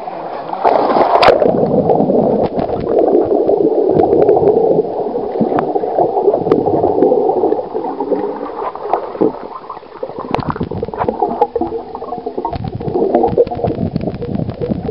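Water gurgling and bubbling, heard underwater through a submerged waterproof camera: muffled, with scattered small clicks and knocks. It eases off past the middle and builds again near the end.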